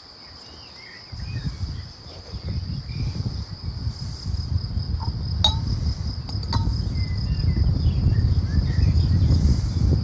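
Crickets chirring steadily, with an uneven low rumble underneath that starts about a second in and grows louder. A few light, ringing glass clinks come around the middle.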